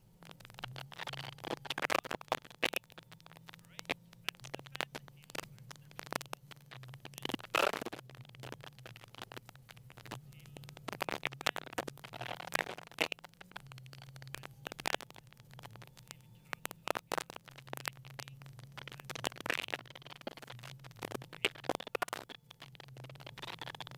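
Onboard sound of a Mitsubishi Lancer Evolution X Group N rally car on a snowy stage: its turbocharged four-cylinder engine note, shifting in pitch, under dense irregular crackling and scraping.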